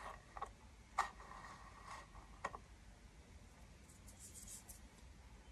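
Faint handling noises: a few short clicks and a soft rustle, then a brief high hiss a little after four seconds in.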